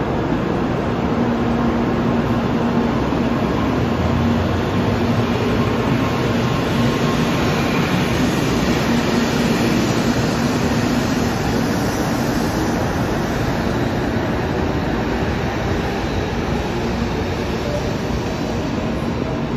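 N700-series Shinkansen train moving slowly along the platform, a steady rumble with a faint hum from the passing cars that eases off slightly in the second half.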